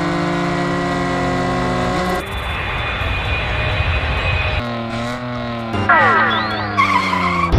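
Vehicle sound effects: a steady engine-like hum with several tones, then a rushing, jet-like noise about two seconds in, and a run of falling whistles near the end.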